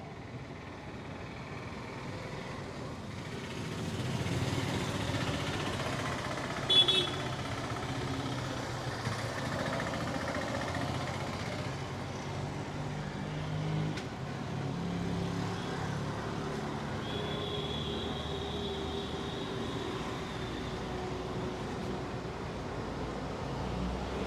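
Street traffic ambience: a steady background hum of passing vehicles, with a brief sharp high-pitched sound about seven seconds in.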